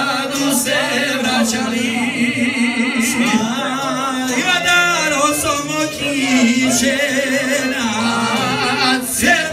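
Two men singing a Croatian folk song together through microphones, with wavering, ornamented melody lines over steady held notes.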